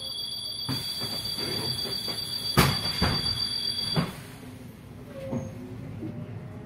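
City bus: a steady high-pitched tone for about four seconds, with a few sharp knocks, the loudest about two and a half seconds in. The tone cuts off with a knock near four seconds, leaving the low running noise of the bus.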